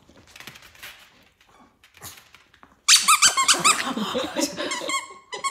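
A dog's squeaky plush toy squeaked over and over as a Maltese chews and shakes it in play. The squeaking starts loud and fast about three seconds in, after softer rustling.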